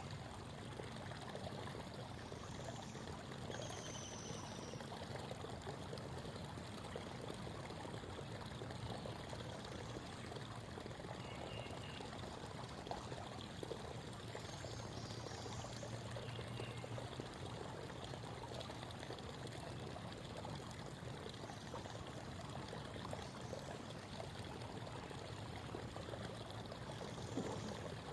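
Shallow creek babbling steadily over stones, with a few faint, short high bird calls over the water.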